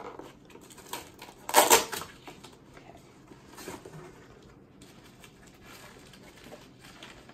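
Packaging being handled: plastic wrapping crinkling and rustling with many small clicks, and one short loud burst of noise about one and a half seconds in.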